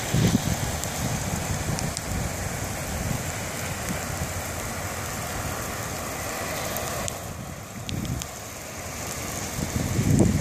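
Steady hiss of rain and running floodwater, with low gusts of wind buffeting the microphone near the start, about eight seconds in and near the end.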